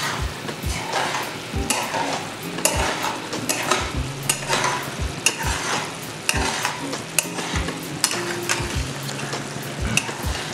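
Metal spatula stirring and scraping thick mutton ghee roast in a kadai, knocking and scraping against the pan about twice a second, over the sizzle of the masala frying in ghee. The roast is stirred constantly so it does not catch on the bottom.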